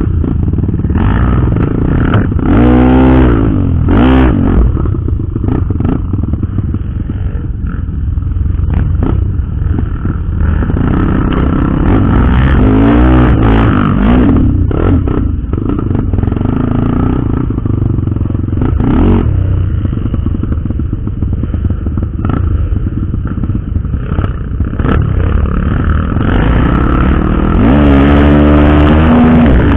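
Trail motorcycle engine running and repeatedly revving up and down over rough ground, with scattered knocks and rattles.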